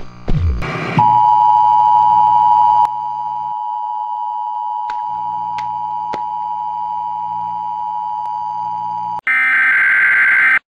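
A steady, single-pitched electronic beep tone, like a television test tone, comes in about a second in after a few falling swoops. It is loud at first, then holds quieter over a low hum, with a few faint clicks. Near the end it gives way to a loud burst of hiss.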